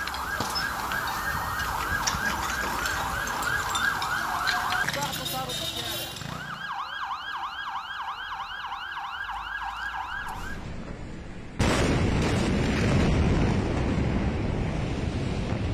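Emergency vehicle sirens yelping, a quick rise and fall about three times a second, in two stretches with a short break between. About two-thirds of the way through they cut off abruptly into a loud, even rushing noise.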